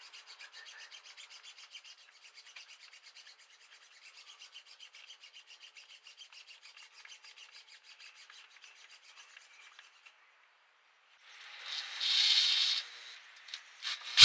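Doubled stainless steel wire being twisted up with a handheld tool: a faint, fast, even scratching rhythm, several strokes a second, as the strands rub on each other. After a short pause near the end comes a louder rasping scrape.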